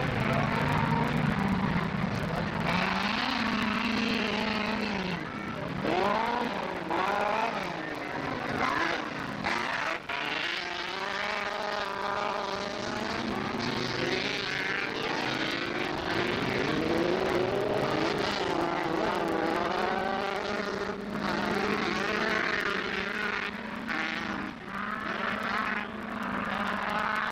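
Several autocross race cars' engines revving at high revs, their pitches rising and falling and overlapping as the cars accelerate, shift and pass around the dirt track.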